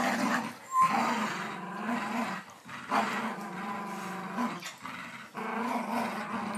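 Dogs growling in play during a game of tug of war: long growls with a few short breaks.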